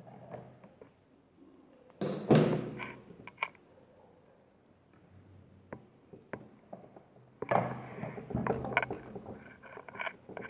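Handling noises while working on a sewing machine: a loud knock about two seconds in, a few sharp clicks after it, then a second run of knocks and clicks from about seven and a half seconds.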